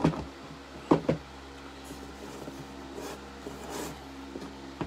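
Shrink-wrapped cardboard card boxes being slid out of a case and set down on a stack: a few dull knocks in the first second or so, then soft sliding and rustling of the plastic wrap, over a steady low hum.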